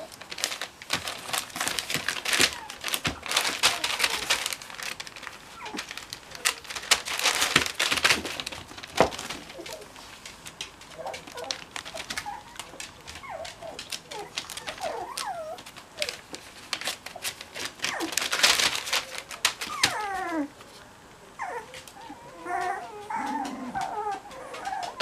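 Cocker spaniel puppy's paws rustling and crinkling newspaper in quick, irregular crackles. From about halfway in come high puppy whimpers and squeaks in short rising and falling glides, more frequent near the end.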